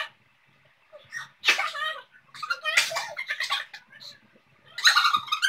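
Several women sneezing one after another, with voiced sneezes set off by sneezing powder (chikni) put in the nostrils.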